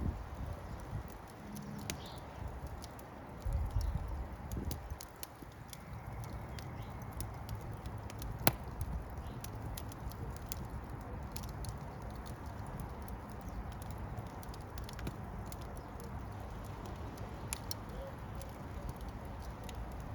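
Fire crackling, with irregular small snaps and pops over a low steady rush, and one sharp loud pop about eight and a half seconds in.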